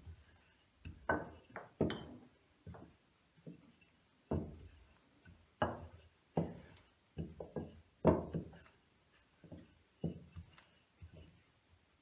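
Wooden rolling pin working stiff dough on a silicone pastry mat: a string of uneven knocks and thuds as the pin is pushed and set down, the loudest about eight seconds in.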